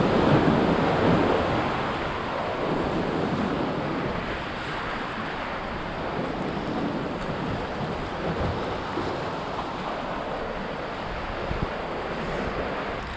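Ocean surf washing against the boulders of a rock jetty, with wind on the microphone. The wash is louder in the first couple of seconds, then settles to a steady rush.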